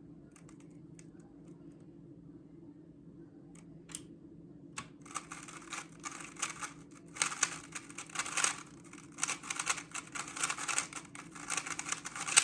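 A speedcube being turned fast by hand: a few isolated plastic clicks, then about five seconds in a rapid, continuous clicking and clacking of the layers as the solve gets going.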